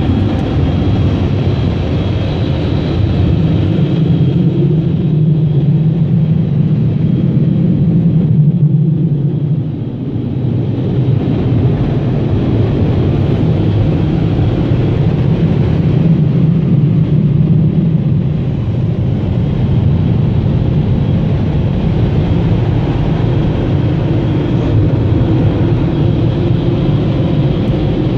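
Car wash blower dryers running, a loud steady rumble heard from inside the car, with a brief dip about ten seconds in.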